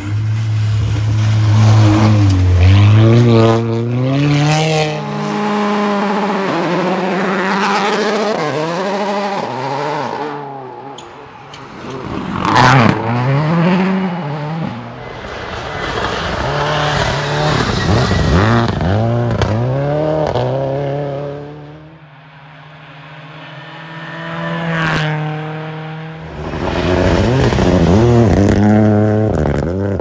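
Rally car engines revving hard, pitch climbing and dropping again and again through gear changes as the cars pass. The sound fades twice and comes back. There is a sharp crack about twelve seconds in and another near twenty-five seconds.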